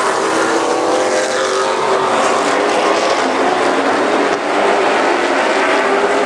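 A pack of late model stock cars racing past, their V8 engines running hard together with many engine notes overlapping.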